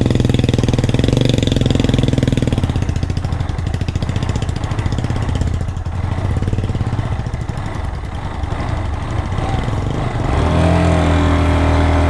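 Motorcycle engine labouring and revving under heavy load as the bike struggles to pull up a steep, muddy track, with a rapid pulsing beat. It turns to a steadier drone near the end.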